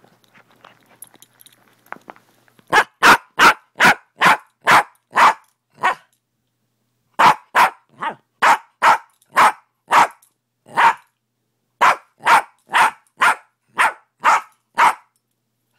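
A small dog barking repeatedly, about two or three sharp barks a second in three runs of seven or eight with short pauses between, after a few seconds of faint rustling.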